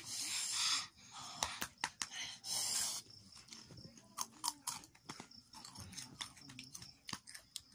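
Close-up chewing and crunching of crisp snack chips: a run of short, sharp crunches through the whole stretch, with a few bursts of rustling in the first three seconds.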